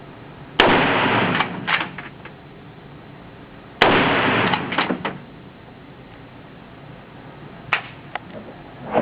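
Machine gun firing two short bursts on full auto, about three seconds apart, each ending in a couple of separate shots. A few fainter sharp clicks follow near the end.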